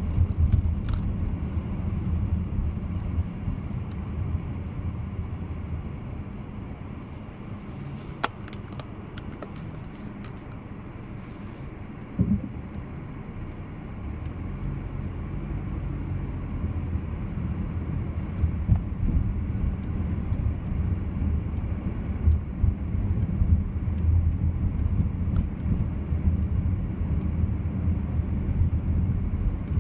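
Low road and engine rumble heard from inside a moving car. It drops quieter for several seconds in the middle as the car slows for a red light, then builds again as the car drives on. A few light clicks and one sharp knock come near the middle.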